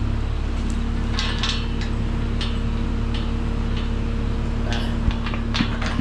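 Skid loader engine running steadily, with scattered metallic clinks and rattles from about a second in.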